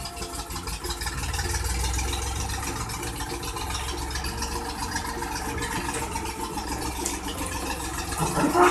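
Engine of an old tandem road roller running steadily with a low rumble as the roller drives up a ramp onto a low-loader trailer.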